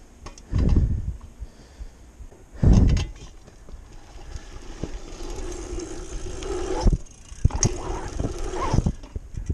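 Mountain bike rolling fast down a packed-dirt trail, its knobby tyres humming on the dirt, the hum growing louder from about halfway as speed builds. Two heavy low thumps come in the first three seconds, and a few sharp clicks near the end.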